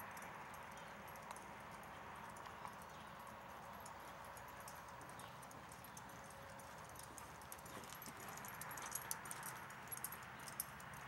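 A ridden horse's hoofbeats on soft sand arena footing, with light clicking and jingling from the tack over a steady hiss. The clicks come thicker near the end.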